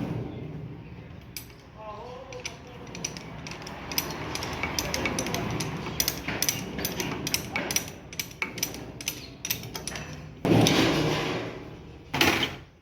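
Ratchet wrench clicking in quick repeated strokes as a nut on the steering rack and suspension is run down, followed by two short loud bursts near the end.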